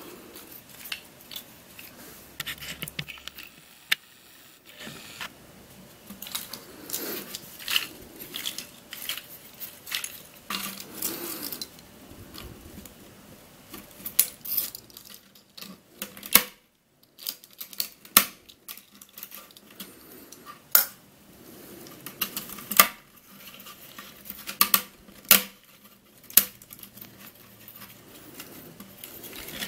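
A black-dyed 3D-printed plastic support cage being pried and snapped apart by hand, with loose printed puzzle pieces rattling inside. Irregular sharp clicks and cracks, with louder snaps in the second half.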